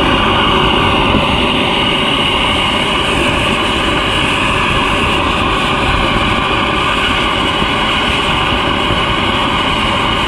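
Handheld gas torch burning with a steady, unbroken roaring hiss while heating a brazed copper pipe joint on an air-conditioner compressor to unsweat it.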